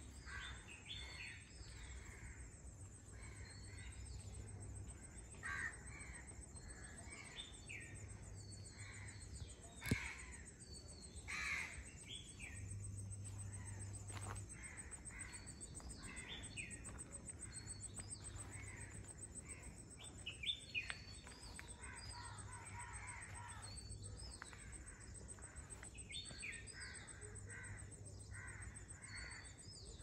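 Many birds calling and chirping, crows cawing among them, in short repeated calls throughout; a single sharp click about ten seconds in.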